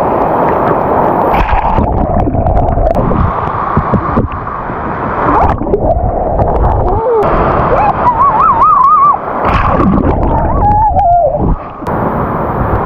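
Sea waves washing over and around a GoPro held at the water's surface, with loud sloshing and gurgling as the microphone goes under the water.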